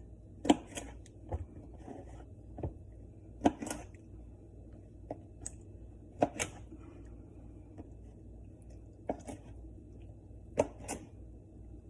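Knife cutting raw shrimp on a cutting board: scattered knocks of the blade meeting the board, several in quick pairs, with pauses between.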